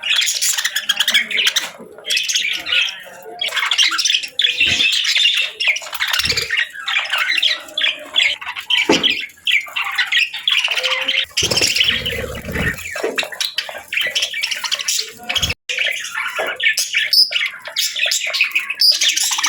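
Several budgerigars chattering continuously in rapid chirps, warbles and squawks, with a brief low rustle or bump about twelve seconds in.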